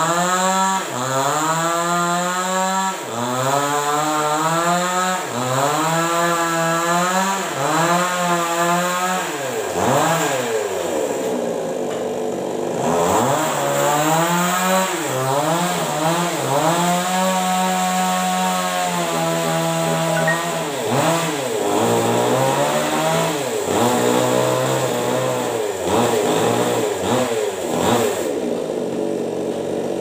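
Two-stroke chainsaw revving up and easing off again and again while cutting into a tree trunk, each rise held for a second or two. Near the end it falls away.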